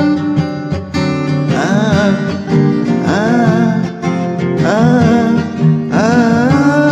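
Closing bars of a song performed on acoustic guitar with voice: steady guitar accompaniment under a series of long held sung notes, each one sliding up into pitch.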